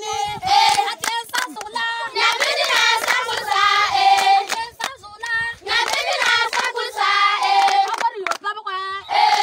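Group of schoolchildren singing together while clapping their hands.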